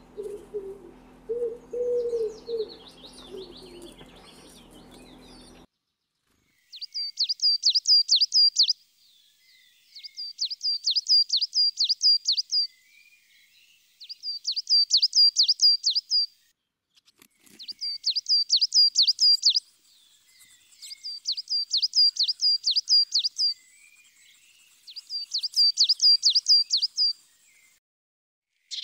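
A pigeon cooing in short repeated coos for the first few seconds. Then a songbird sings six times, each song a fast run of about ten identical high, down-sweeping notes lasting about two seconds, repeated roughly every three and a half seconds.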